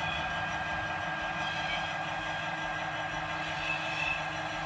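Bachmann OO gauge Class 66 model's factory-fitted DCC sound decoder playing its diesel engine sound through the model's small speaker as the locomotive runs slowly, steady throughout, with a thin steady whine above it.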